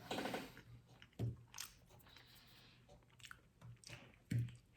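A person chewing and biting into a lactation brownie: soft, irregular mouth sounds close to the microphone, with one louder bite or smack near the end.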